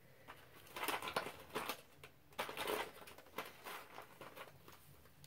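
Plastic packaging rustling and crinkling in several short bursts, off the kind of small toy pieces being handled and unwrapped.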